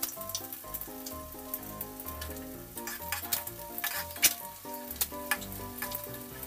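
Halved hard-boiled eggs deep-frying in hot oil in a wok, sizzling steadily with irregular crackling pops, while a metal spatula turns them in the oil.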